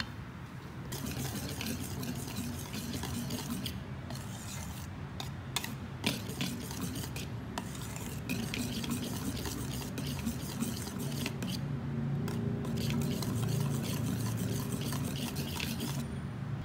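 Spatula stirring and scraping thick cake batter in a stainless steel bowl, with scattered taps against the bowl, over a low steady hum. The stirring starts about a second in and stops just before the end.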